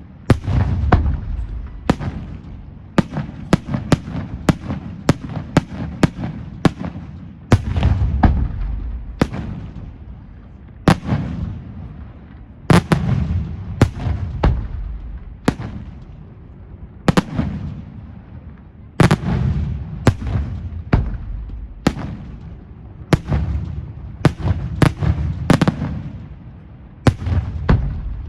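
Aerial fireworks display: a rapid, continuous barrage of sharp shell bursts, several a second, with deep booms echoing between them.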